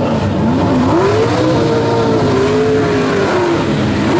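A first-generation Chevrolet Camaro drag car's engine doing a burnout at the starting line. The revs climb about half a second in, hold high for a couple of seconds while the rear tyres spin and smoke, then drop near the end.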